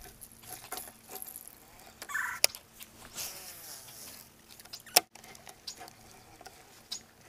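Baitcasting rod and reel handled and cast: a series of sharp clicks and small rattles, the loudest about two and a half and five seconds in, with a short whir of line running off the spool between them.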